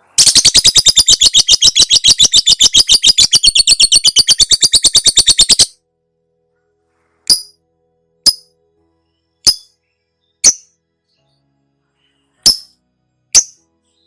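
Lovebird giving its ngekek song: a long, fast, harsh chattering trill of about nine notes a second that stops abruptly after about five and a half seconds. Six single sharp chirps follow, spaced one to two seconds apart.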